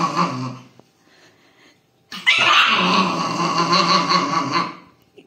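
Puppy growling and snarling over a bone in two bouts: one that stops under a second in, and a longer one from about two seconds in that dies away near the end.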